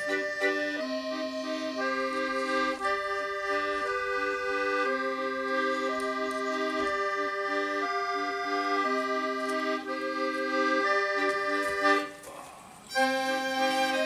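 Background accordion music with held chords that change every second or so. It breaks off for about a second near the end, then starts again.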